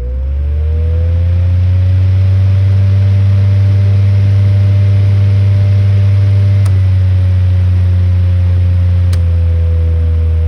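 Mainstays 9-inch box fan starting up on high, heard close from the back: the motor spins up over the first second or two, then runs at a steady, loud hum with the whir of the blades. Two faint ticks come later, and after the second the pitch sags a little.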